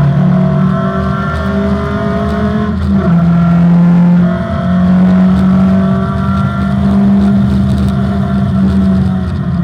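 Opel Manta rally car's engine running hard on a special stage. Its pitch holds steady, then changes in steps as the driver shifts gears, with a short dip about four and a half seconds in.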